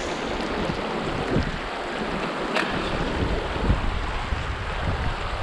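Mountain stream rushing steadily over stones, with wind buffeting the microphone in uneven low rumbles and a short sharp click about two and a half seconds in.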